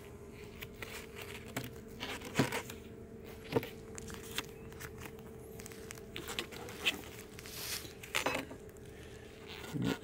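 Gloved hands and a hive tool shifting plastic Flow frames in a beehive super, giving scattered knocks, clicks and scrapes, over a faint steady hum.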